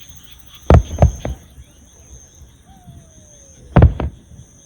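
Aerial fireworks bursting: three sharp bangs in quick succession under a second in, then two more close together near the end.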